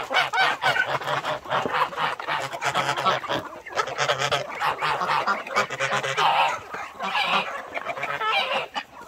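A flock of poultry calling over one another, many overlapping calls without a break.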